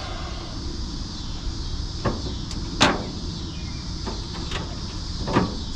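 A handful of short, sharp clicks and knocks, the loudest a little before three seconds in, over a steady low hum and a high, even hiss.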